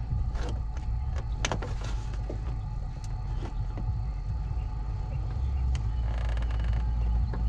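Hand working blind behind a Toyota 4Runner's headlight housing to twist out the front turn-signal bulb socket: a few light clicks and scrapes of plastic, and a longer rustle about six seconds in, over a steady low rumble.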